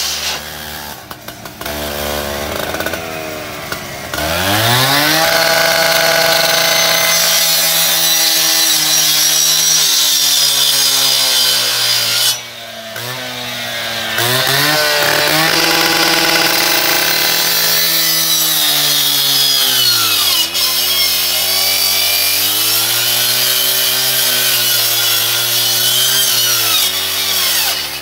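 Gas-powered two-stroke rotary rescue saw with a circular blade, idling at first, then revved up about four seconds in and held at high speed, dropping back to idle briefly around the middle and slowing again later before revving up once more.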